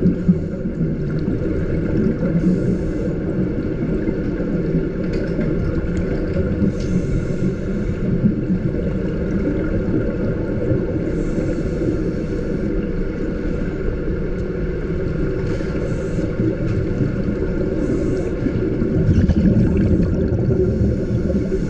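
Underwater sound of a scuba diver breathing through a regulator: a steady low rumble, with a hiss of exhaled bubbles every few seconds.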